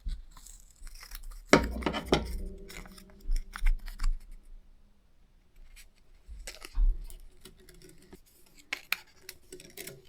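Clicks, taps and light scraping from handling the small parts of an opened iPod. About a second and a half in comes a sharper knock that rings briefly.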